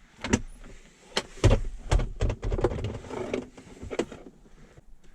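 Plastic centre console trim of a 2008 Toyota Avalon being pried at with a spoon: irregular clicks, knocks and creaking scrapes as the plastic clips are worked loose.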